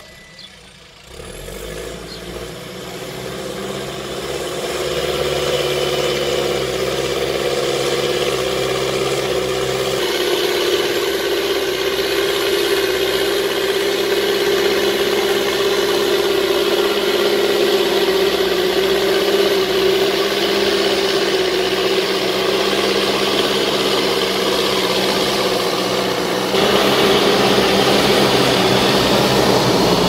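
Backhoe loader's diesel engine running under load as it pushes sand with its front bucket: a steady drone that builds over the first few seconds, then holds, stepping louder near the end.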